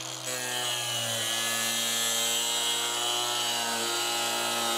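Cordless angle grinder with a cutting wheel running steadily while cutting around the plastic guard tube of a tractor PTO shaft, a steady whine that sags slightly in pitch now and then under load.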